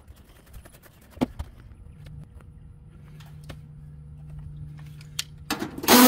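Cordless impact driver running briefly on a screw of a heat pump outdoor unit's panel, starting about half a second before the end and louder than anything else. Before it come a couple of sharp knocks about a second in and a low steady hum.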